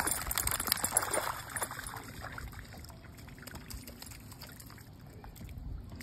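A dog splashing through shallow lake water at the shoreline, loudest and most splashy over the first two seconds, then settling to quieter trickling water sounds.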